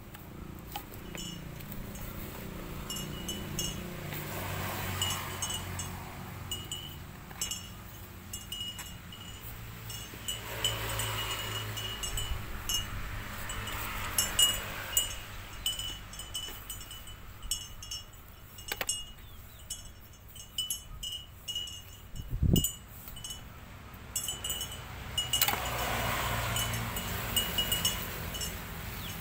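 Burnt rice husk being scooped and sprinkled onto potting soil, with soft rustling swells. Throughout, a short high chiming tone repeats again and again, and there is a single dull thump about three quarters of the way through.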